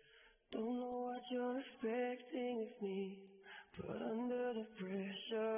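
Background pop song: a sung vocal line in long held notes over light accompaniment, coming in about half a second after a brief gap.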